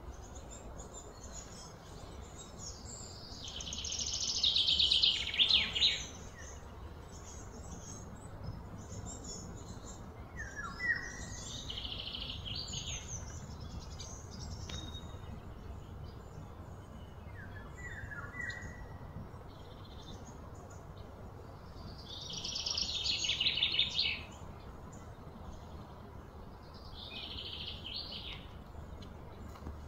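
Outdoor wildlife calls: two loud, high buzzing trills, likely cicadas, each swelling over a couple of seconds and stopping abruptly, with shorter trills and a few brief downward-sliding bird chirps between them, over a low steady hum.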